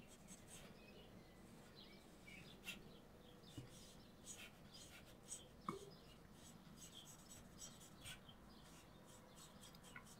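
Faint, soft scratching of a Stampin' Blends alcohol marker's tip in short, irregular strokes as it colours over cardstock, with an occasional light tick.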